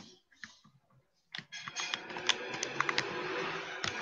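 Scattered clicks of computer keyboard typing picked up through a video-call microphone, with a steady background hiss coming in about a second and a half in.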